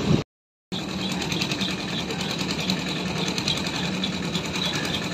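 Sugarcane juice crusher running with a steady, fast, even rattle. The sound drops out for about half a second near the start, then goes on unchanged.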